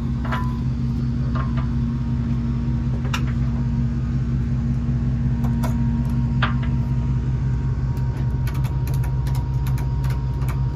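A steady low mechanical hum, with a scattering of light clicks and knocks that come more often near the end.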